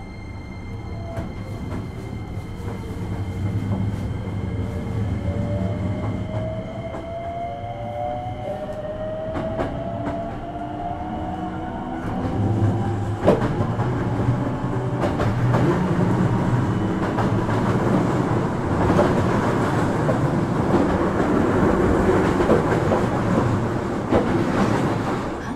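Hankyu 9300 series electric train heard from inside a car as it pulls away and accelerates. The traction motors' whine climbs steadily in pitch as speed builds. From about halfway the wheel-and-rail rumble grows louder, with clicks at the rail joints.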